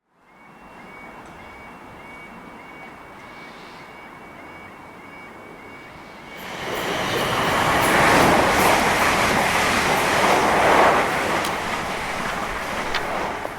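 Quiet background ambience, then about six seconds in a train comes in: its noise swells suddenly to a loud, steady rush that holds for several seconds and eases off near the end.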